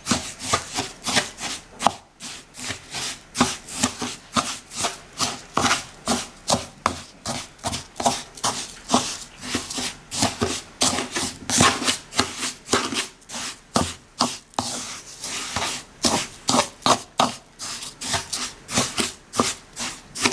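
Wooden spatula scraping and stirring dry couscous semolina in a wooden bowl: quick repeated strokes, a few a second, as cumin is worked into the grain.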